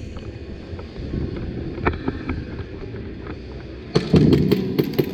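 Airsoft gunfire in a close-quarters indoor game: a few scattered single shots, then about four seconds in a fast run of sharp cracks in quick succession.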